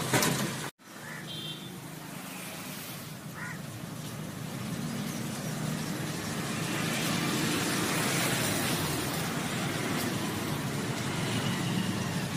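Steady road-traffic noise with passing vehicles, after a brief break in the sound under a second in.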